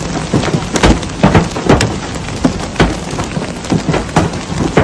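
Hailstorm: a dense hiss of heavy hail and rain, with many sharp knocks of hailstones striking close by at irregular intervals.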